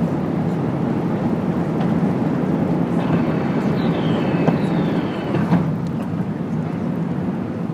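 Cabin noise of an Airbus A380 climbing out after takeoff, heard from a window seat over the wing. It is the steady, deep roar of its four turbofan engines and the rushing airflow.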